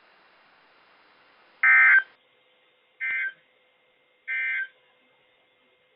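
NOAA Weather Radio SAME end-of-message data bursts: three short bursts of two-tone digital warble about 1.3 seconds apart, closing the severe thunderstorm watch message. The first burst is the loudest, and there is faint radio hiss between the bursts.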